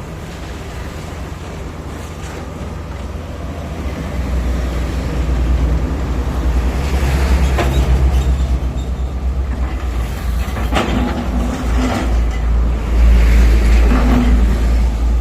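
Heavy diesel machinery running with a deep rumble that grows louder about four seconds in, with a few sharp knocks over it.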